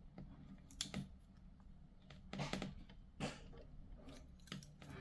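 Faint clicks and taps of small plastic miniature parts being handled and pressed together, a push-fit part that won't seat easily. About five short clicks, spaced irregularly.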